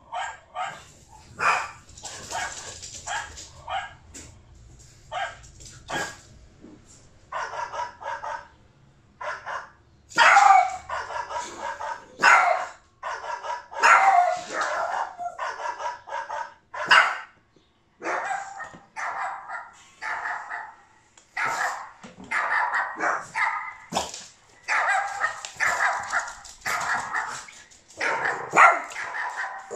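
Dogs barking over and over, short barks mixed with some longer drawn-out calls.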